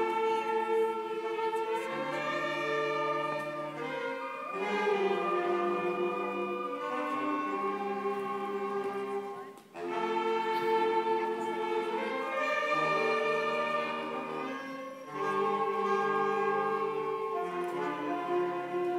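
A school band playing a piece live in held chords, phrase by phrase, with a brief break about ten seconds in and another near fifteen seconds.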